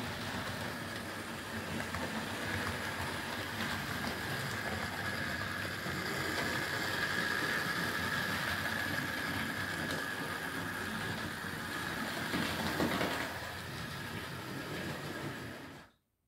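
Model railway locomotive running on the layout: the steady whir of its small electric motor and gearing with wheels rolling on the track, carrying a faint high whine. It cuts off suddenly near the end.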